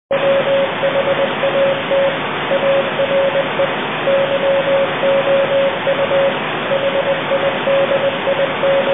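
Loud television-static hiss that starts abruptly out of silence, with a steady mid-pitched tone breaking in and out over it.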